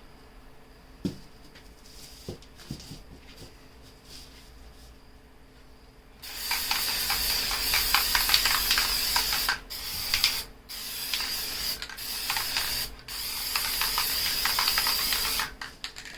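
Aerosol can of black high-temperature spray paint spraying in long hisses, starting about six seconds in, with three short breaks between sprays. A few light clicks and taps come before it.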